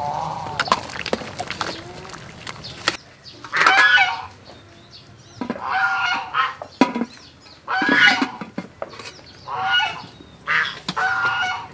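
Farm fowl honking in a run of about six short calls, some close together near the end. A few sharp metal clinks of a ladle against the soup pot come in the first three seconds.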